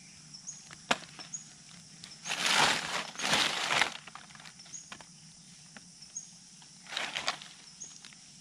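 Dry forest leaf litter and undergrowth rustling and crunching, in two bursts a little over two seconds in and a shorter one near seven seconds, with a few sharp clicks like twigs snapping. A faint, high chirp repeats about twice a second throughout.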